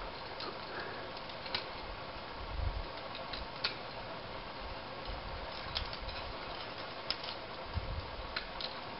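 Steady outdoor background hiss with a handful of faint, sharp clicks scattered through it and two brief low thumps.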